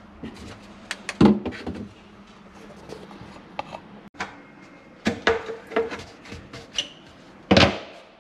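Scattered knocks and clicks of plastic ABS drain fittings and slip nuts being handled and set down on a wooden cabinet floor, with a louder knock about a second in and another near the end.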